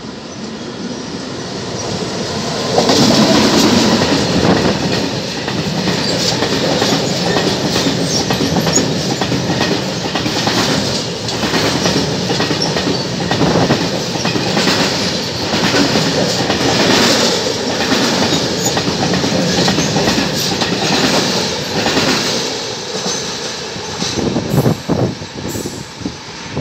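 Freight train of covered sliding-wall wagons, hauled by an FS E652 electric locomotive, passing slowly and close by: a loud, steady rumble of wheels on rail with rapid clacks over the rail joints. It swells about three seconds in and dies away in the last few seconds with a few separate knocks.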